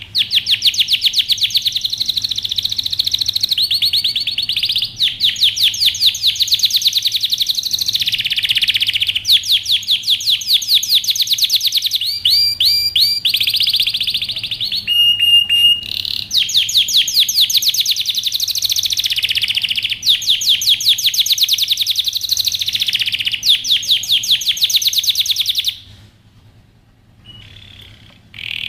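Male domestic canary singing an excited courtship song, the song of a bird in breeding condition: long runs of rapid trills, with a slower rolling phrase and a held whistled note about halfway through. The song drops to a few faint notes near the end.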